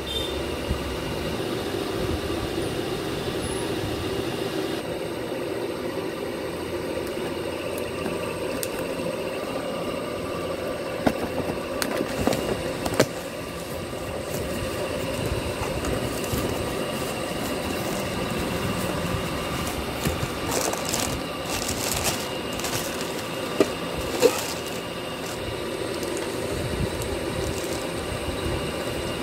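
A steady rumbling background noise with a handful of sharp clicks and knocks, plus a spell of crackling rustle a little past two-thirds of the way through, as a cardboard carton and plastic-wrapped stainless steel bowls are handled.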